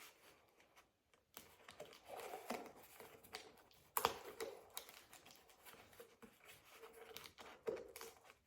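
Faint rustling and scattered clicks of a cardboard box being handled at its packing tape, with one sharp click about four seconds in.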